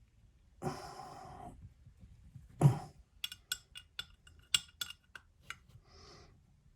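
Metal hand tools being rummaged through: a scrape, a single loud knock, then a quick run of sharp metallic clinks.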